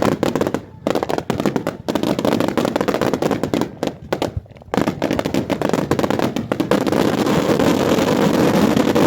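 Fireworks going off in a rapid, dense barrage of bangs and crackles, with a brief lull about four and a half seconds in and a near-continuous crackle toward the end.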